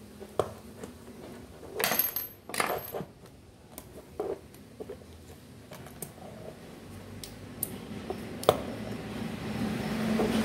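Small metal parts and hand tools clinking and clattering against each other and the work surface while a rotary hammer drill is taken apart, with a cluster of clinks about two seconds in and a single sharp one near the end.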